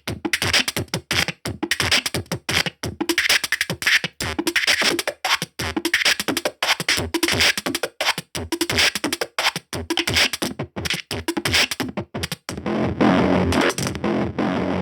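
Electronic music with a fast, choppy, stuttering beat. About twelve seconds in it switches to a dense, continuous section.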